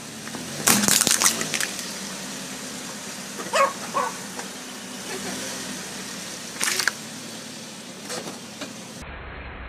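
Small plastic slime tubs cracking and bursting under a car tyre: a cluster of loud cracks about a second in, then further single pops and cracks around four seconds and near seven seconds.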